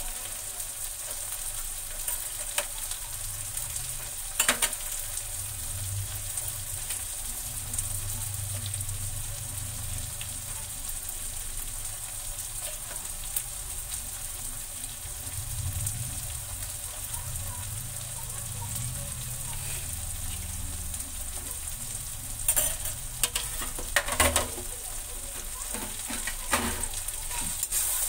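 Vegetables frying in an iron kadai, a steady sizzling hiss. A few sharp scrapes and knocks of the spatula against the pan come about four seconds in and several times near the end as the food is stirred.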